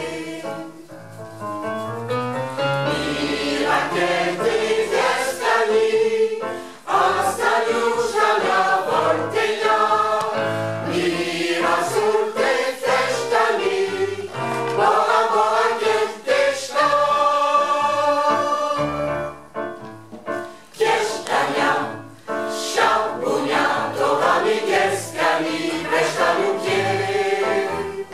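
Choir singing together, mostly women's voices, in phrases with brief breaks between them.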